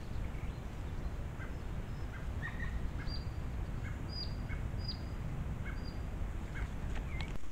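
A bird calling in short single notes, roughly one every half second to second, some high and falling, others lower, over a steady low rumble.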